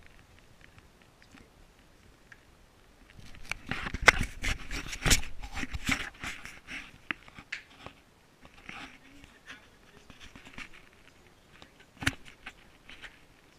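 Handling noise on the camera: scrapes, rustles and knocks as it is moved about, coming thickest a few seconds in, with one sharp knock near the end.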